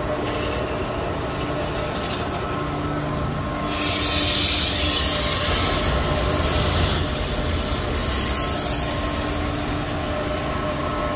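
Oil-side pressure being bled slowly from a Carrier water chiller's oil filter housing: a hiss that comes and goes faintly at first, then runs loud for about three seconds in the middle before easing off. Under it, the steady hum of plant-room machinery.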